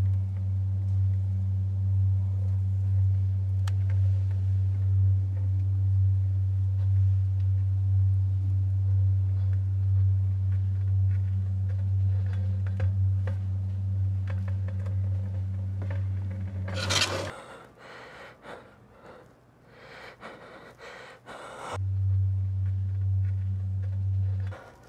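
A steady low hum runs through most of it, cuts off suddenly about two-thirds of the way in and comes back near the end. As it breaks off there is a sharp burst of noise, then a scatter of small clicks and rustles.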